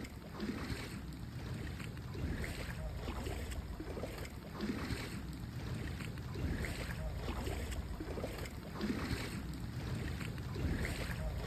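Wind rumbling on a phone microphone over the wash of water on a flooded street: a steady noisy rush with no distinct events.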